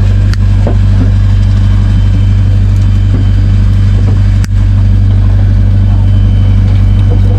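Engine aboard a fishing boat running steadily, a loud low hum that does not change, with a couple of faint clicks about a third of a second and four and a half seconds in.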